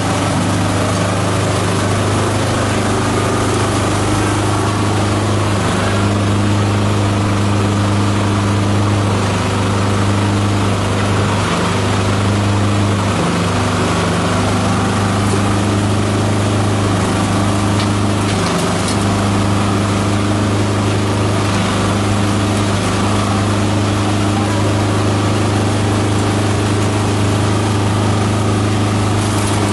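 Multi-purpose chopper-shredder machine running steadily while shredding green plant material, a constant low hum with a few faint clicks.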